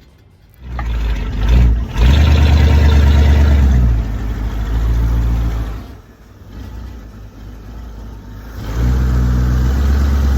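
An engine running and revving: it picks up about a second in, drops back about six seconds in, and picks up again near the end.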